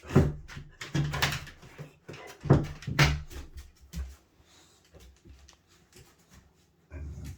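Boxer dog vocalizing in a tantrum: a run of loud, short pitched cries over the first four seconds or so, then quieter.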